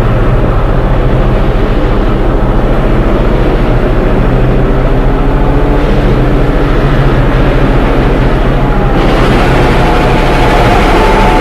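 Train running with a steady low engine drone and rumble; a brighter rushing noise joins about nine seconds in.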